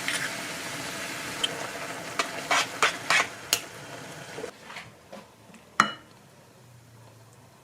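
Kitchen cooking sounds: a steady sizzle with a utensil clattering against a pan several times, then the sizzle drops away about four and a half seconds in and a single sharp clink rings out near the end.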